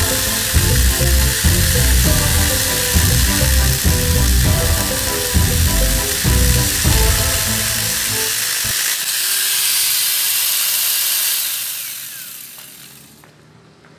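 Maktec MT90 angle grinder driving a mini chainsaw bar and chain, running at full speed as the chain cuts through a log, with a high hiss. Background music with a beat plays over it and cuts off suddenly about two-thirds of the way through. The grinder runs on alone and then winds down near the end, its whine falling.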